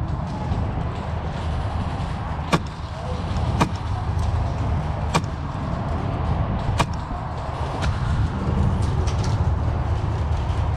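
Sharp single shots of airsoft guns, about five spread a second or so apart, over a steady low rumble.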